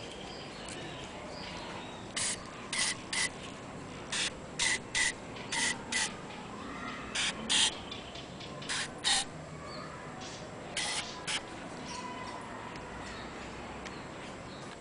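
Aerosol can of multipurpose lubricant sprayed in short bursts, mostly in pairs, into the bore of a disassembled Citroën 3CV brake master cylinder; about fourteen bursts over roughly nine seconds.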